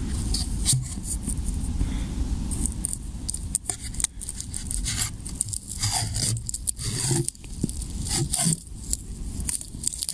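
Paper-covered 3-inch firework shell being lowered into a cardboard mortar tube: a run of short, irregular scrapes and knocks of paper and cardboard rubbing inside the tube, with handling rustle.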